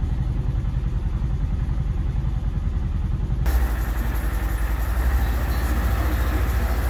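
Polaris Ranger XP 1000 UTV's twin-cylinder engine idling in reverse gear, a steady low pulsing rumble. It is heard from inside the cab, then from outside after a cut about three and a half seconds in.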